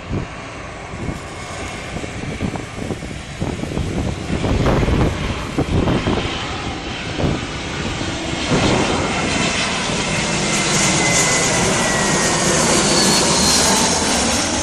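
Jet airliner on landing approach passing close overhead: its engines build from a low rumble to a loud roar with a high fan whine that slides down in pitch as it goes by.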